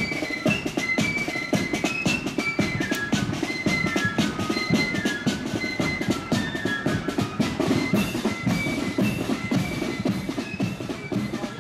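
Corps of drums marching band playing a tune: flutes carry a high stepping melody over a steady marching beat of side drums and bass drum.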